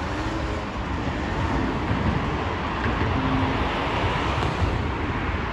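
Steady rushing traffic noise, with a faint engine note now and then from a scooter riding away.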